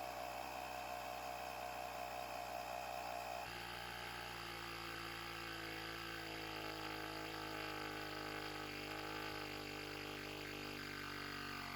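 Portable electric tyre inflator running steadily with a buzzing hum while it pumps up a car tyre; its tone changes abruptly about three and a half seconds in.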